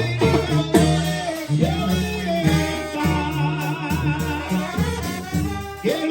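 Live Mexican banda brass band playing, with a singer's voice wavering over the horns and a steady pulsing bass line.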